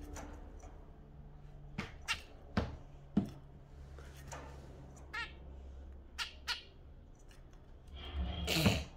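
Caged budgies and a zebra finch giving short, sharp chirps and calls at irregular intervals, with a louder call near the end.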